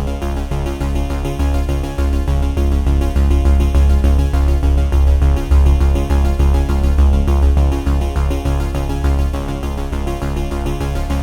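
Background music: an electronic synthesizer track with a pulsing bass line.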